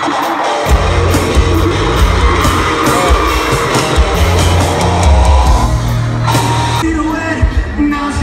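A live pop-rock band plays loudly through a concert PA, with drums, bass and a singing voice, while the audience yells and screams. It is heard from among the crowd.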